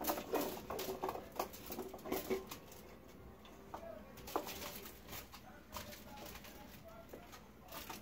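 Sliced potatoes, carrots and celery tumbling out of a wooden bowl into a baking dish: a quick run of small knocks and clatters over the first two seconds or so, then a few scattered light taps as the bowls are handled.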